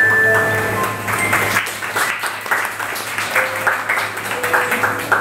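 The last notes of a piece on a Casio Privia digital piano ring out, then the audience breaks into applause about a second in.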